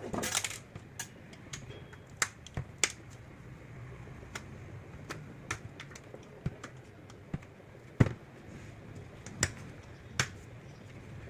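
Irregular sharp clicks and taps, about fifteen over the stretch, with a brief clatter at the very start: small tools and screws knocking on the plastic casing of a Bluetooth speaker as it is unscrewed and taken apart.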